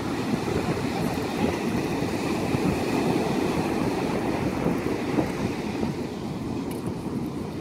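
Wind buffeting the microphone in a steady low rumble, with surf washing onto the beach.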